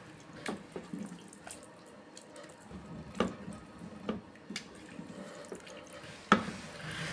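A wooden spoon stirring thick, wet curry in an aluminium pot, with squelching and irregular light knocks of the spoon against the pot. A sharp, louder knock comes near the end.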